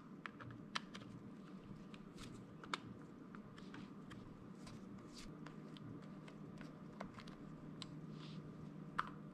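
Faint small clicks and scrapes of a flathead screwdriver working the side-plate screw out of a Penn 430SS spinning reel, with a few sharper ticks, the clearest near the end.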